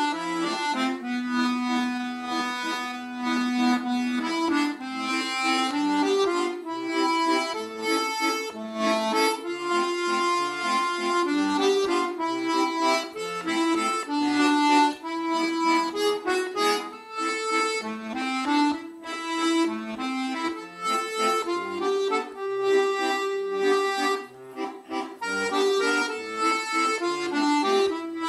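Instrumental background music: a melody moving over held low notes.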